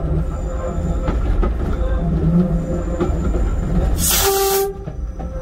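Cab noise of a railcar running along the track, a steady low rumble with a faint engine hum. About four seconds in, a short, loud hiss of air cuts in for under a second, and the running noise is quieter after it.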